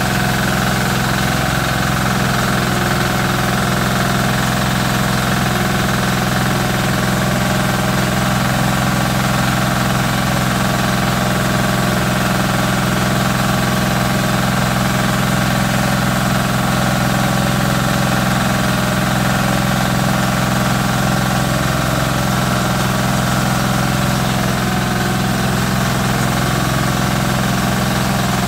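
Small single-cylinder air-cooled diesel engine running steadily at constant speed, belt-driving a rice milling machine under test.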